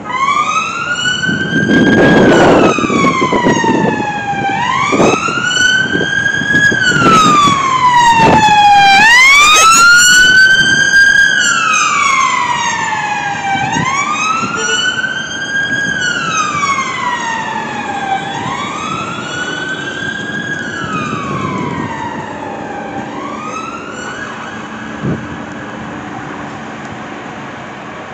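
Police car siren on a slow wail, rising and falling about every four and a half seconds; a second siren crosses it briefly around nine seconds in. The wail is loudest about ten seconds in, then fades steadily as it moves away, over low traffic rumble.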